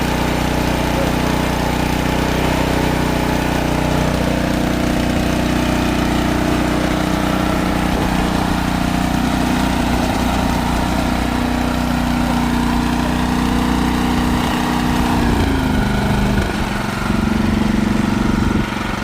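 Snowblower engine running steadily. About fifteen seconds in its pitch falls and the running turns less even.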